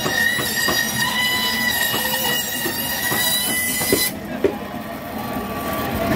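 Electric band saw cutting through the flesh of a large bagair catfish, with a steady high whine from the blade. The whine cuts off suddenly about four seconds in, leaving a lower hum from the running saw and a couple of knocks.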